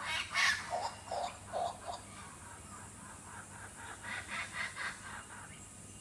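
Laughing kookaburras calling: a loud run of rapid chuckling notes in the first two seconds, then a fainter run about four to five seconds in.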